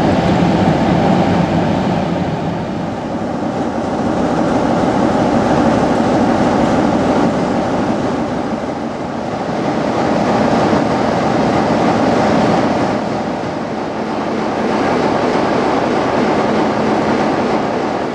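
Class 47 diesel locomotive's Sulzer twelve-cylinder engine running, with the coaches rolling over the rails as the train comes into the platform. The sound is steady and loud, swelling and easing every few seconds.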